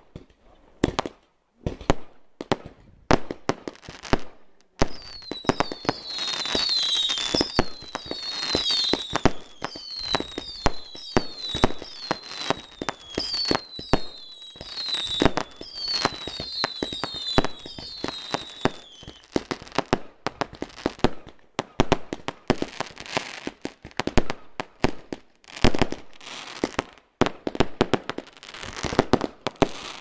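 Category 2 consumer fireworks firing shot after shot in quick succession, a rapid series of sharp bangs. From about five seconds in until about nineteen seconds, a run of high whistling effects sounds about once a second, each whistle falling in pitch.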